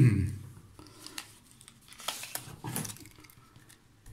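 Scattered light clicks and short rustles of handling as a tape measure is brought against a steel axe head.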